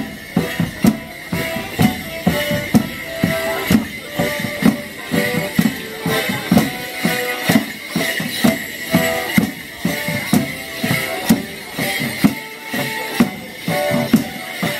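A border morris band playing a lively dance tune, with held melody notes over a steady drum beat of about two beats a second.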